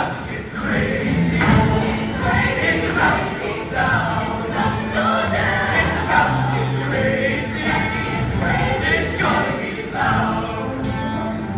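A large mixed show choir singing an upbeat pop number in full voice over a live band, with bass notes and drum hits keeping a steady beat.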